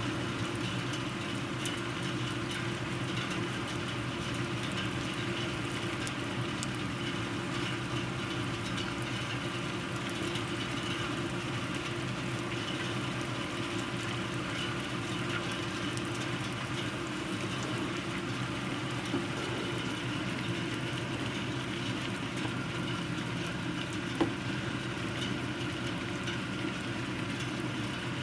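Steady rain falling, with a constant low hum underneath and two faint clicks late on.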